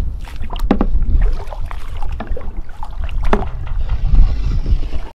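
A scrub brush working algae off the bottom of a sailboat's hull at the waterline: water sloshing and scattered knocks over a heavy low rumble, which cuts off suddenly at the end.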